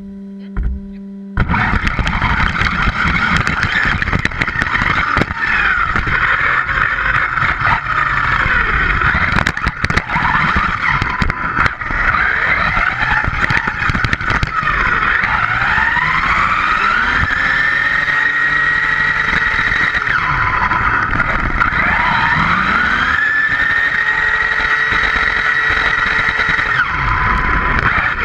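On-board sound of an ECX Revenge Type-E 1/8-scale electric RC buggy driving on pavement: its brushless motor whines up and down in pitch with the throttle over a constant rush of tyre and drivetrain noise, with scattered sharp knocks from bumps. A brief steady hum comes first, and the driving noise cuts in about a second in.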